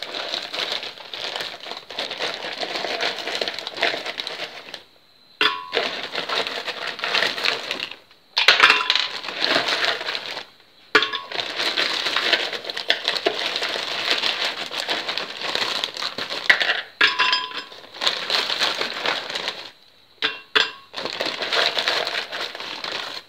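A plastic bag of ice crinkling and rustling as ice cubes are taken out and dropped into a glass blender jar, with sharp clinks of ice on glass. It comes in stretches with several short pauses between them.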